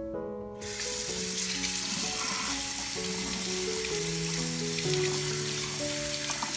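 Food sizzling as it fries in a hot pan, starting abruptly about a second in and going on steadily, under background music.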